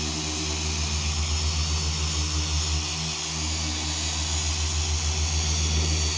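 Electric machine polisher running steadily: a low motor hum with a fast, even flutter, over a hiss.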